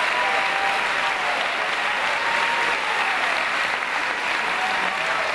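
Audience applauding steadily through a stage dance number, a dense continuous clatter of many hands clapping.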